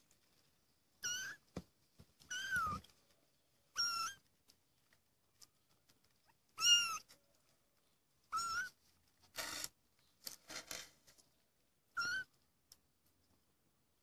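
Three-week-old kittens mewing: six short, high-pitched mews spaced irregularly, each rising and falling in pitch. A few short scratchy noises come between the later mews.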